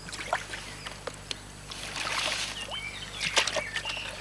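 Water splashing and sloshing at the river's edge as caught fish (roach, bream and hybrids) are released back into the water, with scattered small splashes and a fuller rush of water about two seconds in.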